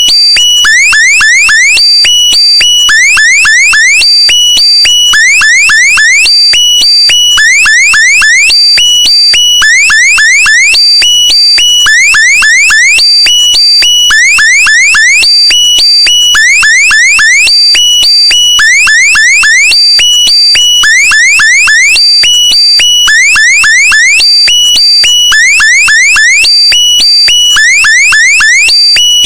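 Loud synthesized electronic alarm: bursts of three or four quick rising chirps, repeating about every second and a half, over steady high-pitched tones.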